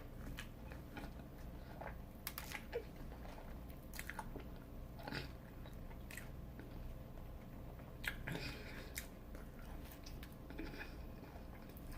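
Close-up chewing with scattered crisp crunches from biting into a Flamin' Hot Cheeto–crusted fried shrimp.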